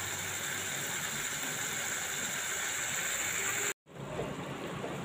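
Fish belly pieces and potatoes frying in oil in a kadai: a steady sizzle as the fat begins to render out of the fish. It cuts off abruptly a little under four seconds in, then resumes more quietly.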